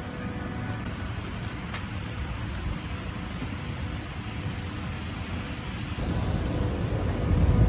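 Outdoor background noise: a steady low rumble, getting louder after a change about six seconds in.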